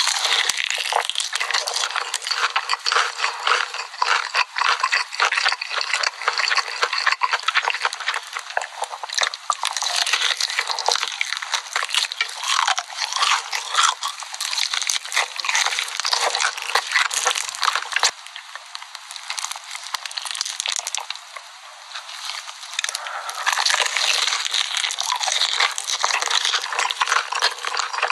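Crunching and wet chewing of a crispy, sauce-coated fried chicken drumstick, a dense crackle of bites that eases into a quieter spell about two-thirds of the way through before picking up again.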